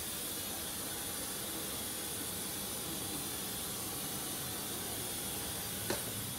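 Steady hiss of rushing air at an airliner's boarding door where the jet bridge meets the fuselage, with one light click near the end.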